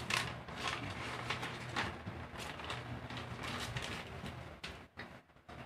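Crinkling and rustling of a sheet of paper being crumpled and folded by hand, in short irregular bursts about every half second, over a faint low hum.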